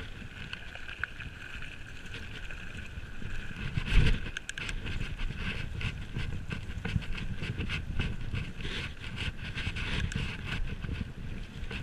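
Mountain bike riding downhill over gravel and then a dirt trail: tyres rolling over the surface, with the bike clattering and rattling over the rough ground and a steady high buzz. There is a heavier thump from a bump about four seconds in.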